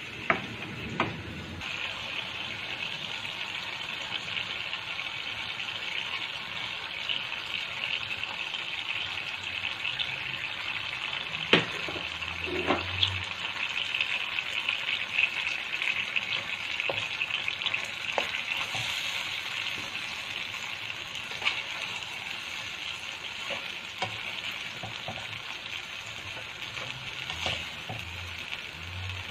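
Beaten eggs and sliced bitter gourd sizzling in a hot wok. A steady frying hiss begins about two seconds in, with occasional sharp knocks of a spatula against the pan.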